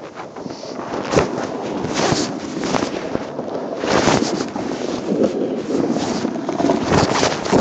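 Crackling handling and wind noise on the camera's microphone, with scattered sharp pops, growing louder after the first second.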